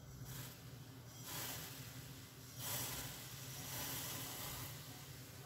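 Boiling water hissing and sizzling as toasted millet grains are poured into it little by little. The hiss swells twice and is loudest near the middle.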